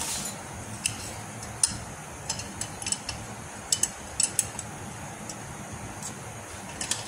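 Light metallic clicks and clinks, about a dozen scattered irregularly, as loose steel parts are handled inside a split tractor's transmission housing, over a steady low background hum.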